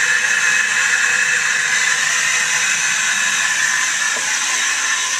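Newly reset toilet's tank refilling after a flush: a steady hiss of water rushing through the fill valve.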